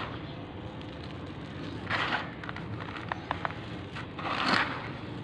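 Hands crumbling and raking dry, gritty crushed charcoal in a tray: a crunching, rustling rush of falling grains about two seconds in and again, louder, near the end, with a few small clicks of pieces knocking together between them. A steady low hum runs underneath.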